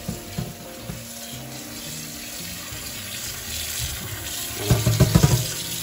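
Kitchen tap running into a stainless-steel sink, the water falling onto sauerkraut in a metal colander. A quick run of knocks and clatters comes near the end.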